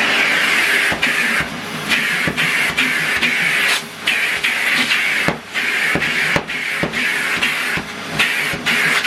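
Numatic Henry cylinder vacuum cleaner running: a steady rush of air that drops away briefly about a dozen times at uneven intervals, with small clicks and knocks.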